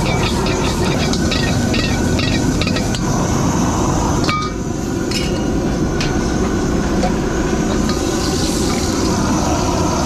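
Stir-frying in a wok over a high-flame gas wok burner: the steady rush of the burner with sizzling, and the metal ladle clinking and scraping against the wok many times in the first three seconds. The level drops a little about four seconds in, and a few single clinks follow.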